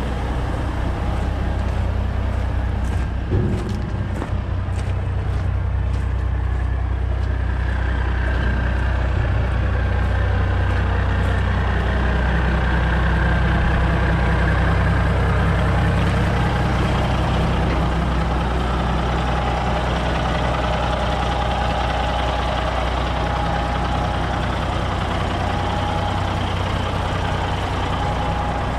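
1992 Ford LTL9000 dump truck's diesel engine idling steadily, with a faint high whine that comes and goes over it.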